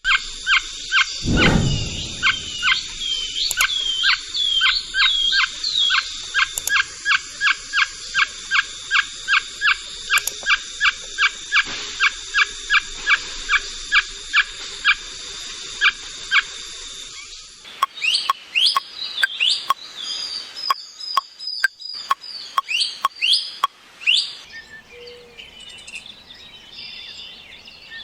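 A bird calling a long series of short, evenly repeated notes, about two a second, over a steady high hiss. After about seventeen seconds the hiss drops away and quicker, irregular chirps follow.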